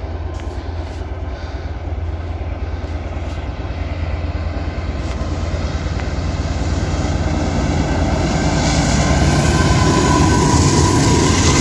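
Union Pacific diesel-electric freight locomotives approaching and passing close by, their engines' rumble growing steadily louder. A steady whine comes in near the end as the lead units go by.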